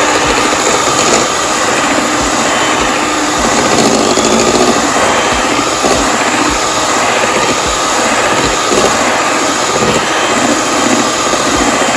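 Electric hand mixer running steadily, its metal beaters whirring through a batter of eggs, sugar and oil in a stainless steel bowl.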